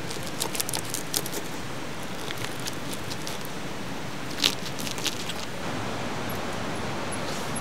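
Knife scoring a grilled sweet potato on a wooden board: scattered light clicks and taps, with a sharper tap about four and a half seconds in, over a steady hiss.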